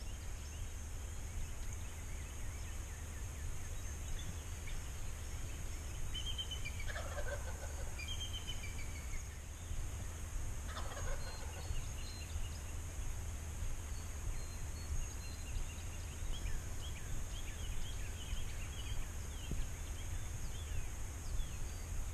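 Wild turkey gobbler gobbling twice, about seven and eleven seconds in, each call a quick rattle falling in pitch. Small birds chirp through the second half over a steady low rumble.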